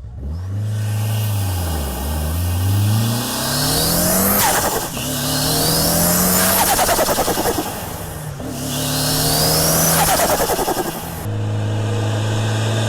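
Mitsubishi Lancer Evolution V's turbocharged 4G63T inline-four revved hard several times, a turbo whistle rising as the revs climb. It flutters rapidly when the throttle closes, about halfway through and again later: the turbo's compressor surging against the shut throttle. Near the end it settles into a steady low run.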